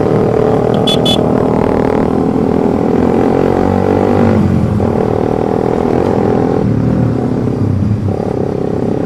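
Suzuki GSX 150 single-cylinder engine running through an aftermarket Pro Liner Short exhaust at low road speed. The engine note drops and picks up again a few times as the throttle is eased and reopened, and two brief sharp high sounds come about a second in.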